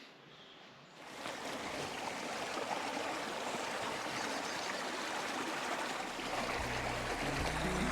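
A steady rushing noise fades in about a second in and holds. Music with low sustained notes comes in underneath near the end.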